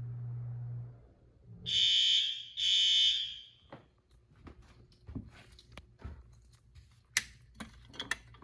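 Fire alarm horn sounding two short blasts of about a second each, with a brief gap between them, then stopping. A low hum runs in the first second, and light clicks and knocks follow the blasts.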